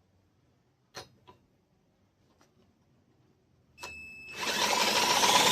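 Two light clicks about a second in. Near the end a small mower engine is cranked over: a loud, steady mechanical whirring rattle starts abruptly, with a thin tone rising slowly over it.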